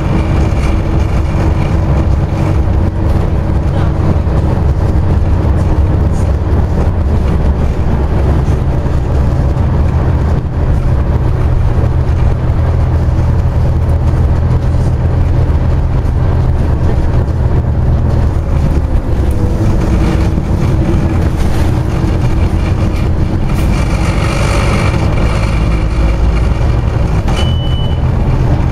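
Scania OmniCity double-decker bus heard from inside while driving: a steady low engine drone with road noise, the engine note shifting a few times. A short high beep near the end.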